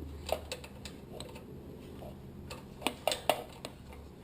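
Scattered light clicks and taps of small metal parts being handled while fitting a mini bike's throttle cable, with a couple of sharper clicks about three seconds in.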